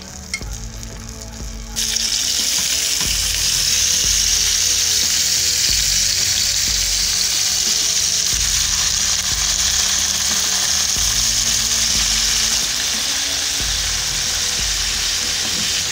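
Pieces of seasoned fish sizzling in hot olive oil in a nonstick frying pan as more are laid in with metal tongs. The sizzle jumps up loud about two seconds in and then holds steady.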